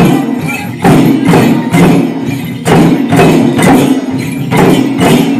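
A group of Limbu chyabrung (kelang) drums, two-headed barrel drums beaten by hand, played together in a steady repeating rhythm of grouped strokes.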